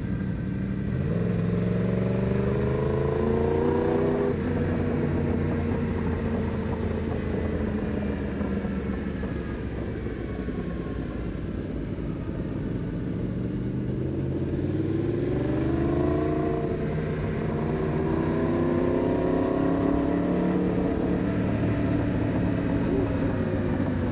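Yamaha MT-10's crossplane inline-four engine heard from the rider's seat, accelerating out of a hairpin with a rising note that drops away about four seconds in. It runs lower for a stretch, then climbs twice more in the second half under hard acceleration.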